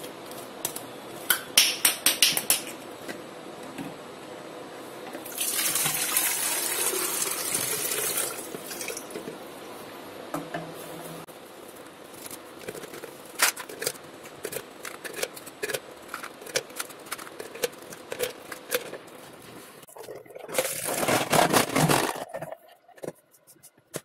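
Chilled water poured from a plastic bottle into a plastic jar for about three seconds, then ice cubes from a plastic ice tray dropping in, with many scattered clinks and knocks. Near the end there is a second short spell of rushing, splashing noise.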